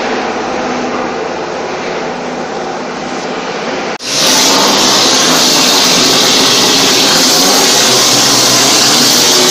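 BDLF QY-800 cement mortar spraying machine running with a steady mechanical drone; about four seconds in it switches abruptly to a loud, steady hiss as the spray gun blasts mortar onto a brick wall.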